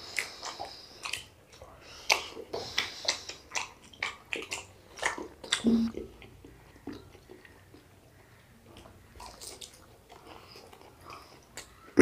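Close-up eating sounds of people chewing and biting food eaten by hand, including fried cauliflower pakoras: a run of short clicks, smacks and crunches, busy for about the first six seconds, then sparser and fainter.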